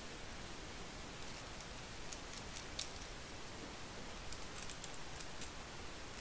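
Sparse, faint light clicks and taps of small RC car suspension parts being handled and fitted together by hand during kit assembly.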